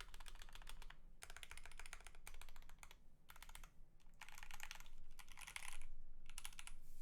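Typing on a GMMK Pro mechanical keyboard with factory-lubed C³EQUALZ X TKC Tangerine linear switches (62 g), GMK keycaps and an aluminium plate: rapid runs of keystrokes in bursts, broken by short pauses.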